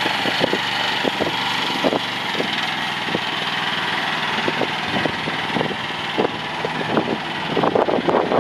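CFG QK18R mini excavator's engine idling steadily, with scattered light knocks over it.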